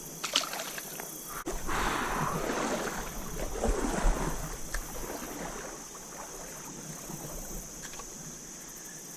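Water splashing and sloshing, loudest in the first half, with a few sharp knocks. A steady high insect buzz runs underneath.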